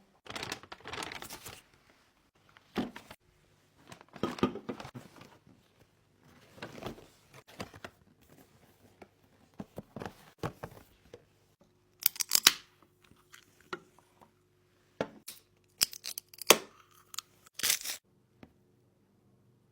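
Handling noises indoors: short bursts of tearing and crinkling with sharp clicks, scattered irregularly, over a faint steady hum that comes in a few seconds in.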